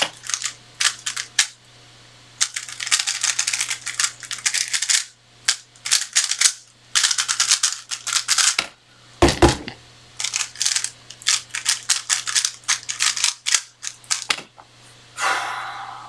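A 3x3 speedcube being turned fast by hand: runs of rapid plastic clicking and clattering from the layer turns, broken by short pauses. A single low thump comes about nine seconds in, over a faint steady low hum.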